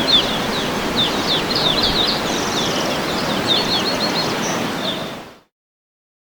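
Steady rush of a waterfall with small birds chirping rapidly over it, fading out to silence about five seconds in.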